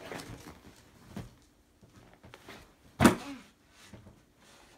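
A cardboard gift box being handled on the floor: soft rustling and a few light knocks, with one sharp knock about three seconds in.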